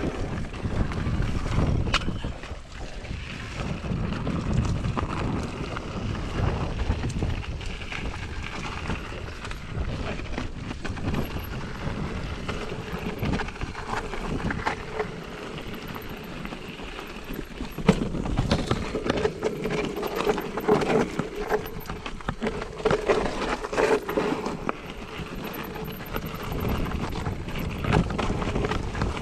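Mountain bike being ridden over rough ground: wind buffeting the microphone, tyre rumble and repeated rattles and knocks from the bike. A steady hum joins in past the middle.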